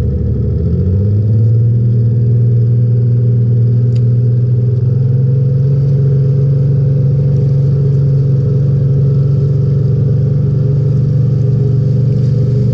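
Boat engine revving up about a second in, then running steadily at a constant pitch.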